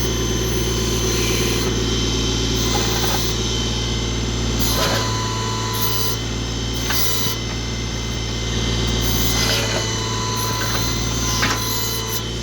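Tractor engine idling with a steady high whine over it. A few short clicks and rustles are scattered through it.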